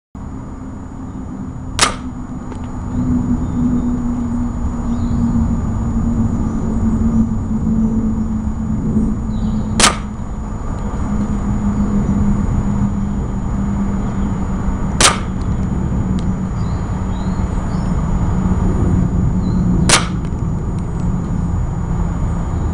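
Four sharp single shots, several seconds apart, fired at frangible yellow-disc range-marker targets, one of which breaks away. Under them is a steady low rumble with a faint hum.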